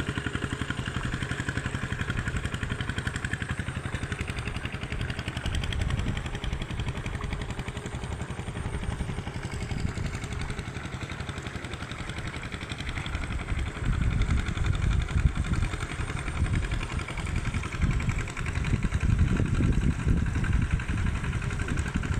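Tractor engine running steadily with a rapid, even beat, getting louder from about two thirds of the way through.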